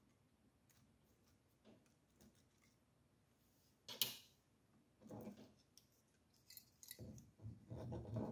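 Near silence with faint handling noises from an Ender 3 Pro's detached hot end assembly and its wires being turned over in the hands. There is one sharp click about four seconds in, and soft rustles and small clicks later.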